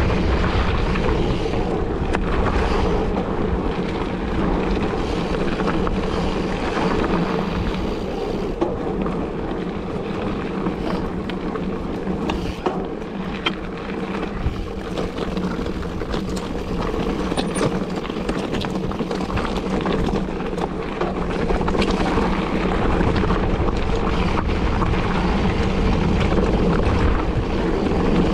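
Wind buffeting the microphone over the steady rolling noise of a mountain bike on a desert dirt trail, with the odd sharp click.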